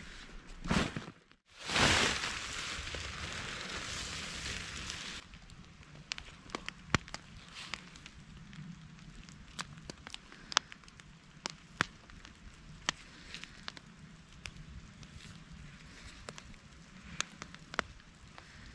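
Loud rustling hiss for about three and a half seconds, then a quieter background broken by scattered sharp ticks and clicks as hands work a thin cord at a tarp's corner loop.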